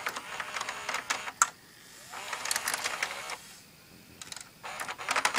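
Open VCR's tape-transport mechanism clicking and rattling in three quick bursts of rapid mechanical clicks.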